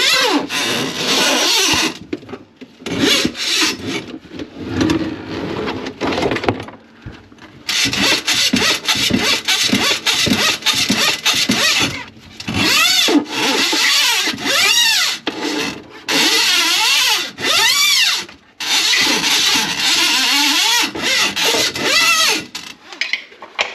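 A power tool running in repeated on-and-off bursts of a few seconds each, with squealing, scraping sounds that sweep up and down in pitch.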